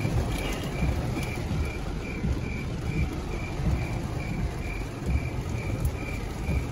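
Cricket chirping sound effect: a short, high chirp repeating about three times a second. Underneath it runs the steady low rumble of a car cabin in rain.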